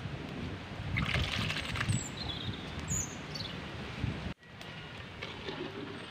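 A metal spatula scraping and knocking in a steel wok as a sticky tamarind and rice-flour mixture is stirred, with a few bird chirps. The sound cuts out sharply a little after four seconds.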